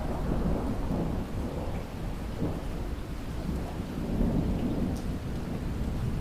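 Thunder rolling over steady rain: a long low rumble swells in at the start and keeps rolling, with the even hiss of rainfall under it.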